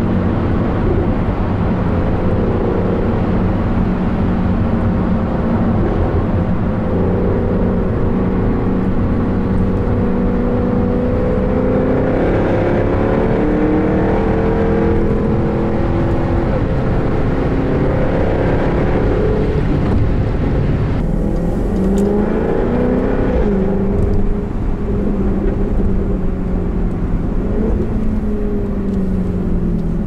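Jaguar F-Type R's supercharged 5.0-litre V8 heard from inside the cabin while driving. The engine note climbs and falls repeatedly as the car accelerates and changes gear, with a run of quick rising revs about twenty-one to twenty-four seconds in.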